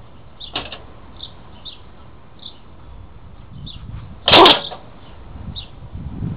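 A squirrel in a wire-mesh live-trap jolts the cage: one sharp metallic rattle about four seconds in, then shuffling and scraping inside the trap near the end. Faint, short, high chirps repeat throughout.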